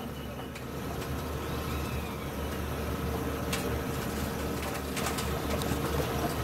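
Steady low hum inside the wrecked race truck's cab, picked up by the in-car microphone, with a few sharp clicks and knocks as hands work around the steering wheel and cockpit from midway on.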